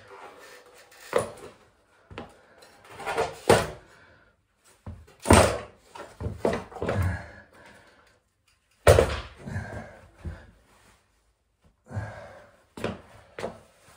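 Irregular heavy metal clunks and thuds as an arc welder's steel casing and transformer are wrenched apart and handled, with several separate knocks spread out between short quiet spells.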